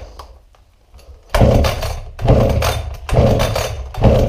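Sachs-Dolmar 112 two-stroke chainsaw being pull-started, the engine turning over without catching. Four pulls on the recoil starter come about once a second, after a quieter first second.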